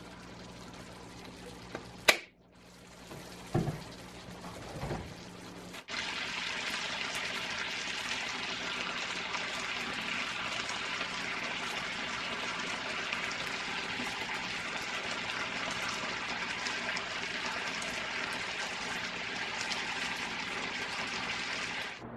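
Stir-fry of cabbage, shrimp and meat sizzling in a frying pan: a steady crackling hiss that sets in about six seconds in. Before that, a sharp click and two softer knocks over a quieter background.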